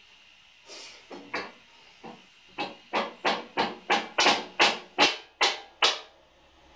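Mallet blows knocking a Yamaha XJ600 Diversion's swing arm into place in the frame. A few light taps come first, then a quick run of about ten harder blows at roughly three a second.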